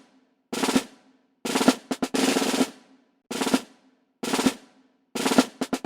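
Music with short snare-drum rolls, about seven quick bursts over a faint held low note.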